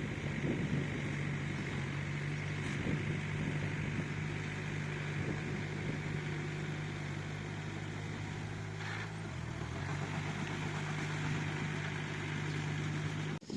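Bulldozer's diesel engine running steadily with a low hum; its note drops briefly about nine seconds in, then comes back up.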